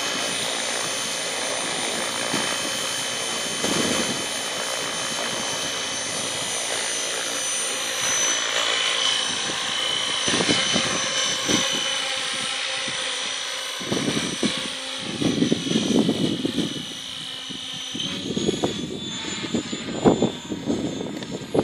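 Alien 600 V2 radio-controlled model helicopter running, lifting off and climbing away: a steady high whine from its drive and rotor head over rotor noise. Bursts of low rumbling come and go in the second half.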